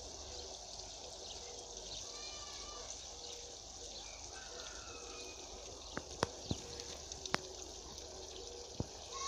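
Steady running or trickling water, with a few faint short chirps early on and several sharp clicks in the second half.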